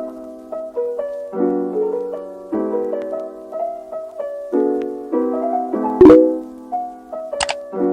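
Piano-like keyboard music playing a run of chords that change about once a second, with a loud sharp hit about six seconds in and a shorter sharp click near the end.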